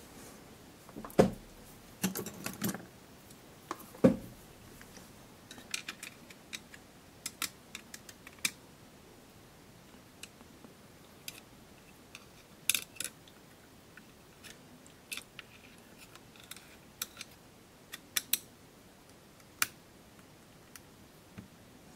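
Scattered small clicks and taps as a thin hand tool and fingers touch the plastic case and circuit board of an opened Casio VL-1, irregular and spaced out, with a few sharper ones about a second, four seconds and thirteen seconds in.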